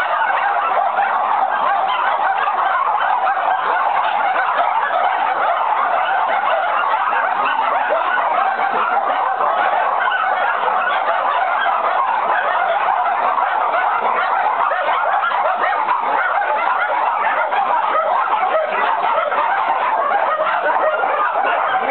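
Many dogs barking and yapping at once, a loud unbroken din of overlapping barks.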